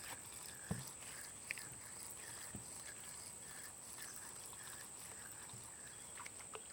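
Evening insect chorus: a steady high drone with a short chirp repeating about twice a second, and a couple of faint knocks.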